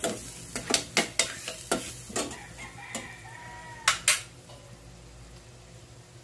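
Metal spatula scraping and clacking against a stainless-steel pan as diced onion and bell pepper are stirred in soy and oyster sauce, over a steady sizzle. Around four seconds in come two sharp knocks, then only the sauce sizzling gently.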